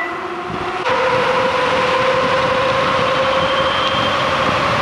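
The 12 kW hub motor of a 72-volt electric dirt bike whines under hard acceleration. The whine jumps louder and higher about a second in, as full power comes on, then climbs slowly in pitch as the bike gathers speed, over steady rushing wind noise.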